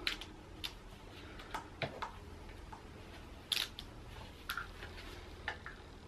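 Socket and ratchet working the rocker-cover bolts on a BMW N47 engine: scattered, irregular light clicks and taps of metal on metal, the sharpest about three and a half seconds in.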